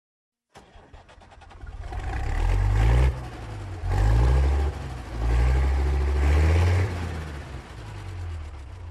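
A heavy engine revving in three surges, its pitch stepping up each time and dropping back in between, then running lower near the end.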